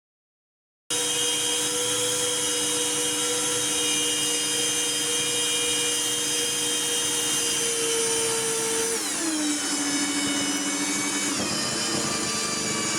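Parkside portable metal bandsaw's motor running continuously with its trigger locked, a steady whine with many steady tones that starts suddenly about a second in. Its pitch falls about two-thirds of the way through and again near the end as the motor slows under the load of cutting a thick steel block, the kind of overload that burned this saw's motor out.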